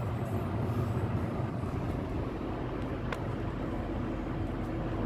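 Steady road and engine noise inside a moving car's cabin, with one light click about three seconds in.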